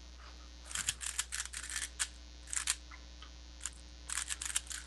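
Computer keyboard keys and mouse buttons clicking in short, quick runs.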